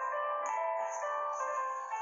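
Background music: a light melody of held notes changing every fraction of a second, with no bass.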